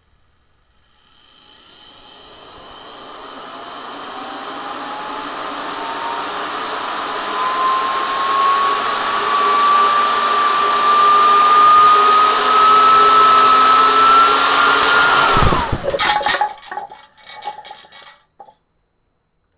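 Electro-Lux brushed motor, fed straight to its brushes from a Variac, spinning up with a whine that rises steadily in pitch and grows louder for about fourteen seconds. Then its commutator bars fly apart: the whine suddenly collapses into a sharp burst of clattering, followed by a few seconds of scattered rattles and clicks.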